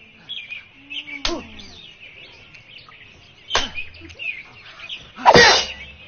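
Birds chirping and tweeting throughout, as a background bed. Over it come two sharp hits, about a second in and past the middle, and near the end a short, louder noisy rush.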